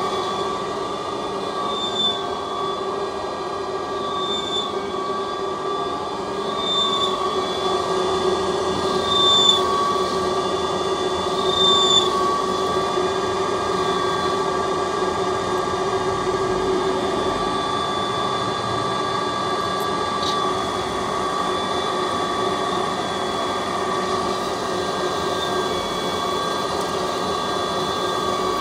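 CNC lathe cutting grooves into a spinning metal bar: a steady machine hum and whine from the spindle and the cut, with a short high chirp about every two and a half seconds during the first twelve seconds.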